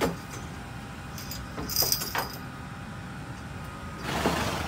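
Metallic jingling and clinking about two seconds in, then a short breathy burst of noise near the end, over a steady low background hum.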